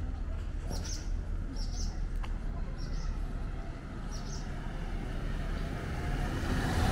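A small bird chirping briefly four times over a steady low street rumble, with a vehicle approaching and growing louder near the end.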